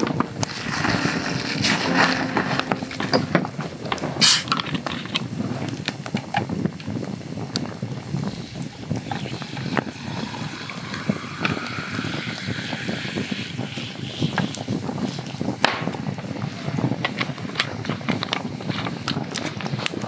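Soda water poured from a plastic bottle over ice into a tall glass of whisky, the pitch of the pour rising as the glass fills, with the carbonation fizzing and the ice crackling.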